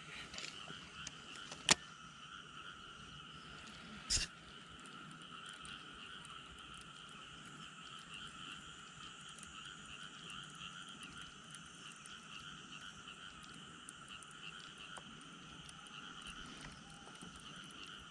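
Frogs calling in a steady, continuous chorus. A single sharp click comes a little under two seconds in, and a brief knock about four seconds in.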